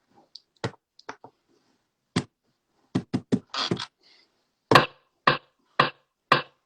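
Irregular sharp knocks and taps, about a dozen in all, with a brief rustle about three and a half seconds in and the loudest knocks near the end.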